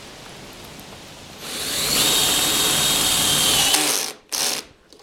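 Power drill running with a steady high whine for a little over two seconds, stopping, then a brief second burst, as in fastening the locking rail to the windshield channel.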